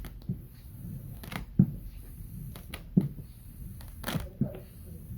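Felt-edged squeegee being stroked across vinyl film to press it onto a Tolex case: irregular short scrapes and soft knocks, roughly one a second, with a longer scrape about four seconds in.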